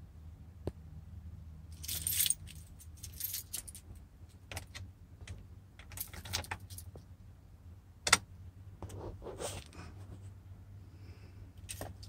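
Bunch of keys jangling on the ring as the ignition key is worked, with sharp clicks, the loudest about eight seconds in. No starter or engine sound follows: the 2003 Chevy Suburban does not crank.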